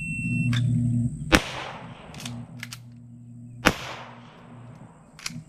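A shot timer's short start beep, then two handgun shots about two and a half seconds apart, each with a long echoing tail. A few fainter sharp cracks come in between and near the end.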